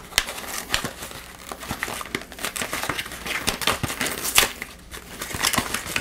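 A small cardboard box being handled and its flaps pried open: irregular crinkling, scraping and clicking of cardboard, with a louder crackle a little over four seconds in.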